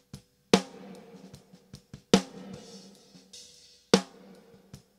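Recorded snare drum track played back with reverb added: three loud snare hits a little under two seconds apart, each trailing off in a decaying reverb tail, with faint lighter hits in between.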